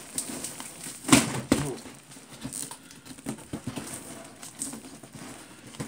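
Packing tape being pulled and peeled off a cardboard box by hand: two sharp, loud tearing sounds about a second in, then lighter crackling and rustling of tape and cardboard.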